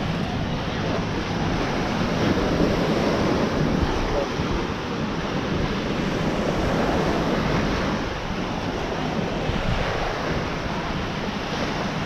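Small ocean waves washing onto a sandy beach, a steady rush of surf, with wind buffeting the microphone.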